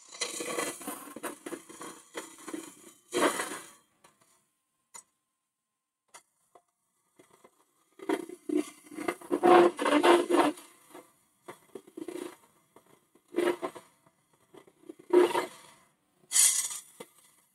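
Hollowing tool cutting inside a spinning holm oak hollow form on a wood lathe: scraping and tearing in separate bursts, with quiet pauses between cuts.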